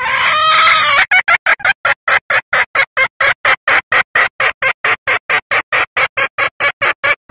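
Recorded call of a female red junglefowl, played back as a lure to draw in males: one drawn-out opening note, then a long, even run of short clucking notes, about four to five a second.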